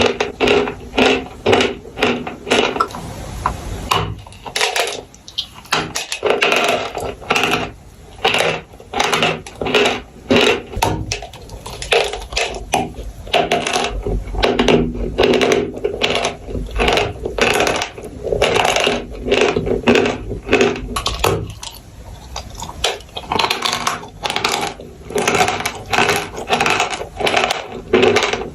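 Chalk and clay crunching up close, a steady run of crisp brittle crunches at about two a second, with short pauses now and then.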